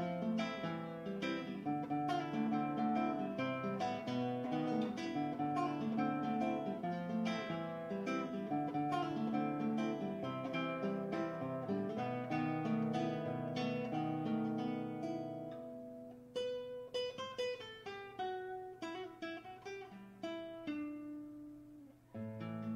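Background music played on acoustic guitar, with plucked and strummed notes. About two-thirds of the way through, the playing thins to sparser single notes. Just before the end the fuller accompaniment returns.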